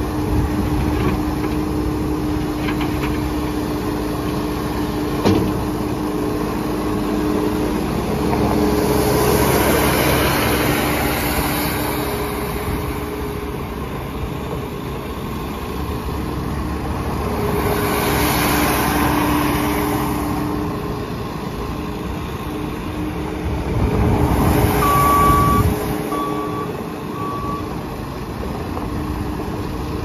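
Case SR210 skid steer loader's 74 hp FPT diesel running steadily as the machine drives and turns, with three surges of engine and hydraulic noise as it is throttled up, the last the loudest. A backup alarm beeps three times near the end.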